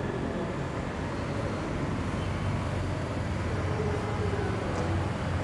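Steady background rumble with no distinct events, and a faint tick near the end.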